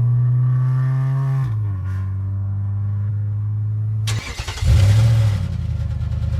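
Golf GTI Mk7's 2.0 TSI EA888 four-cylinder engine running at a steady raised speed, its note dropping slightly about a second and a half in. About four seconds in comes a sudden loud rush of noise, then the engine runs on with a rougher, pulsing note.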